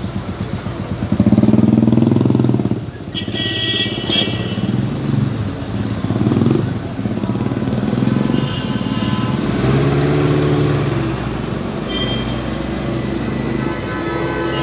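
Alexandria Raml tram running past at close range, its motors and wheels on the rails giving a steady mechanical hum, mixed with street traffic. A brief high-pitched squeal comes about three seconds in.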